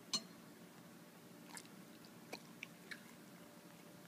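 Dog taking a piece of chicken and chewing it: one sharp click just after the start, the loudest sound, then a few soft chewing clicks.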